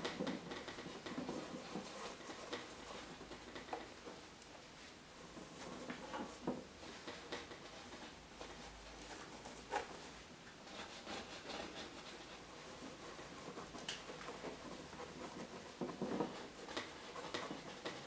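Faint scratching and soft tapping of a paintbrush working oil paint, with a few brief sharper clicks scattered through.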